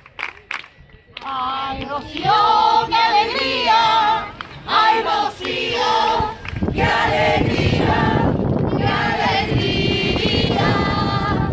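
A group of people singing together in chorus, with a few sharp handclaps at the start. About halfway through, a steady rushing noise joins under the singing.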